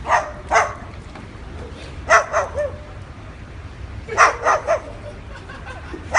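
White cockatoo barking like a dog: short bark-like calls in quick groups of two or three, repeated every couple of seconds.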